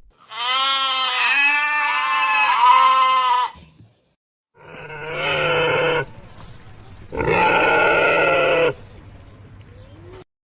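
Goat bleating three times: one long wavering bleat of about three seconds, then two shorter, harsher bleats.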